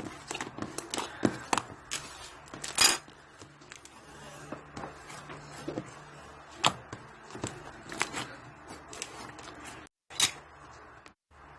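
Slime being squished and stretched by hand, giving irregular sticky clicks and pops, the loudest about three seconds in.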